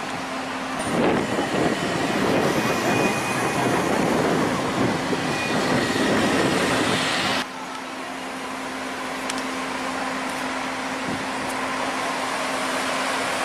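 Cars moving slowly through a toll gate: engines running and tyres on the road, louder as a car passes close in the first half, with a steady low hum underneath. The level drops abruptly about seven seconds in.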